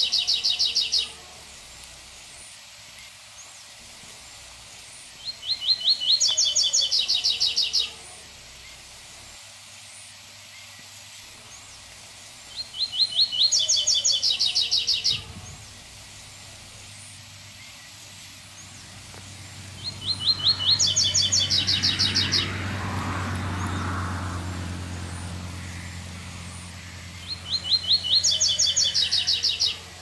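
A seedeater singing: a high, rapid song phrase about three seconds long, repeated about every seven seconds. A low rumble swells in the second half and fades before the last phrase.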